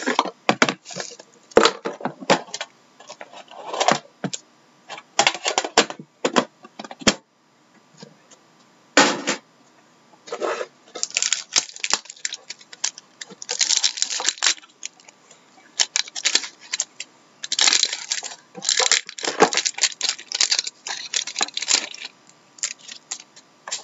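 Plastic wrapping and a foil card-pack wrapper crinkling and tearing in irregular crackly bursts as a box of hockey cards is unwrapped and the pack inside is opened, with light knocks of the cardboard box. There is a lull about a third of the way in.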